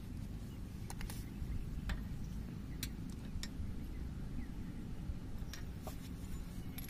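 Faint, scattered light clicks of a freshly cleaned spark plug being fitted and threaded by hand into a Hero Splendor motorcycle's cylinder head, over a steady low background rumble.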